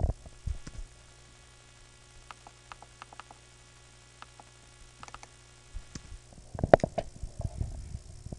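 Faint steady electrical hum, with scattered soft clicks and a brief run of louder clicks about two-thirds of the way in. Near the end there are mouse clicks.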